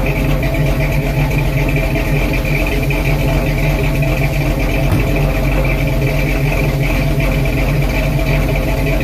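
1977 Pontiac Trans Am's 455 V8 idling steadily on its freshly rebuilt carburettor, heard from behind at the exhaust.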